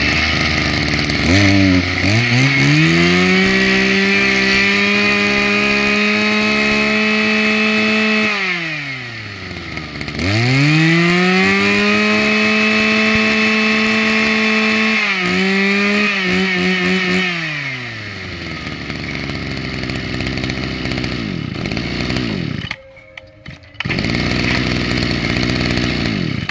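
Mitsubishi TL261 26cc two-stroke brush-cutter engine running without load. It is revved up to a high steady pitch, drops back, is revved again, then settles to a lower steady run. There is a brief break of about a second near the end before it is heard running again.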